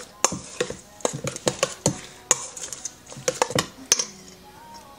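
Metal spoon stirring a thick mayonnaise dressing in a stainless steel mixing bowl, clinking and scraping against the bowl's sides in quick, irregular strokes.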